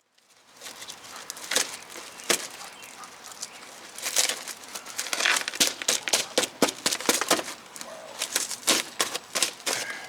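Packaging for a replacement axle being pulled open by hand: steady crinkling and tearing with many sharp crackles and snaps.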